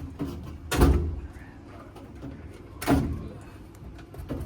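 Two sharp clunks about two seconds apart, each with a short ringing tail, from parts being handled inside the HVAC unit's blower compartment. The first is the louder.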